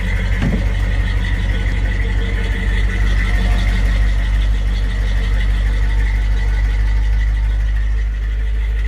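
1984 GMC 3500's rebuilt 350 V8 with a Quadrajet carburettor running steadily on a cold start.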